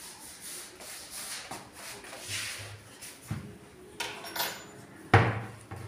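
A few scattered knocks and bumps, the loudest a sharp knock about five seconds in.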